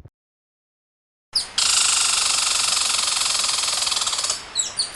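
After a moment of silence, a loud, steady, rapidly pulsing high buzz runs for about three seconds and cuts off abruptly. It is followed by a run of quick, downward-sweeping bird chirps.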